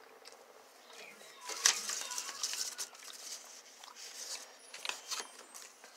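Paper rustling and crackling as a cut-out paper figure is handled and slid across a sheet of drawing paper. It comes as a run of short scrapes and crackles, starting about a second and a half in.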